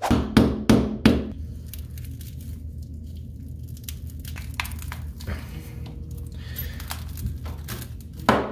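An iPhone 12 being bent by hand, giving faint creaks and small cracks of its cracked glass and frame over a steady low hum. A quick run of sharp knocks in the first second, and sharp regular knocks again near the end.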